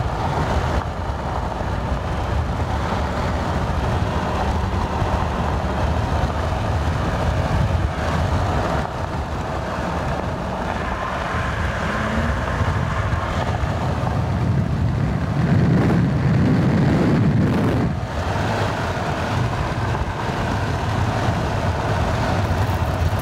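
A car driving at road speed: steady road and tyre noise with wind on the microphone, heard from inside the cabin. It swells into a louder low rumble about fifteen seconds in for a few seconds, then settles back.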